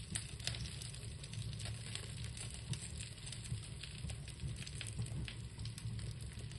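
Small fire crackling and sizzling, with many sharp little pops, over a low steady rumble.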